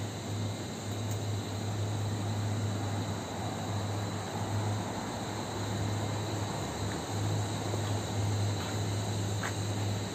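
Steady alley ambience: a constant low hum with a thin, steady high tone above it, a few faint ticks, and one short chirp near the end.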